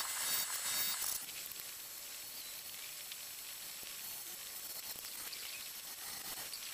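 Wood lathe running with a faint steady hiss while no tool is cutting the padauk blank, with light scraping in the first second.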